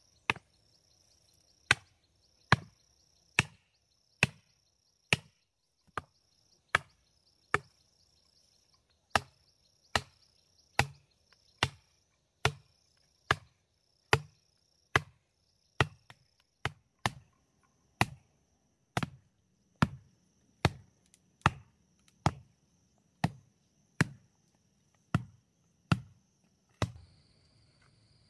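A hand tool striking over and over at an even pace, a little more than once a second, each blow a sharp crack with a low thud beneath it. Insects buzz steadily at a high pitch behind the blows.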